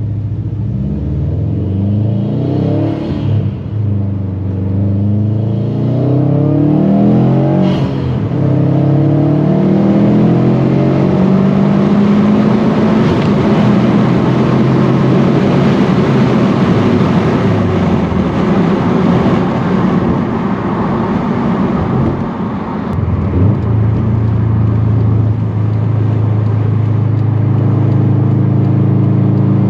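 Stage 2 Subaru WRX STI's turbocharged flat-four engine under way: the revs climb and fall through gear changes in the first several seconds, then it runs hard with a rough, dense sound for about twelve seconds before dropping back a little after twenty seconds to a steady, even note.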